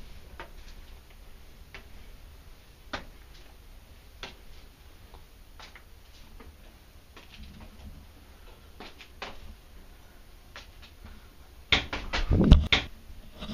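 Footsteps on stone stairs: sharp, irregular clicks of shoes on the steps over a low hum. Near the end comes a sudden, much louder flurry of knocks lasting about a second.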